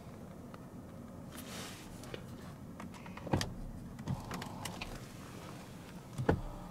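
Electric steering column adjustment motor of a BMW 645Ci running as the column moves, a steady low hum that sounds T-Rex-like, with a couple of short clicks about midway and near the end.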